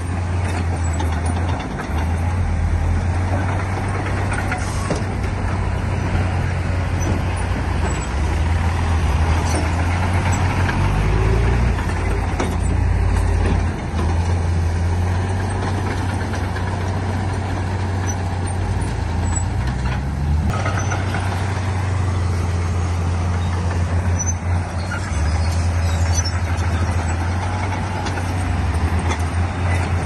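Heavy diesel engines of a bulldozer and dump trucks running continuously, with the engine note shifting up and down a few times.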